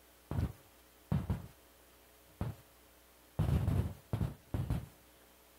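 Handling noise on a handheld microphone: about six short, muffled thumps and rubs over a second or so apart, the longest about three and a half seconds in, as the microphone is taken up and passed between hands.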